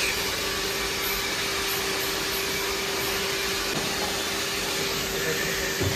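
Steady rushing air noise from a motor-driven blower such as a hair dryer or air conditioner, with a steady hum beneath it.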